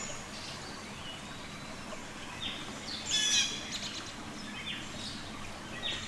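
Blue jay calling: a few short calls in the second half, the loudest a cluster about three seconds in.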